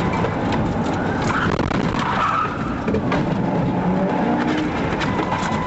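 A car driving hard, its engine running and tyres scrubbing and skidding on the road.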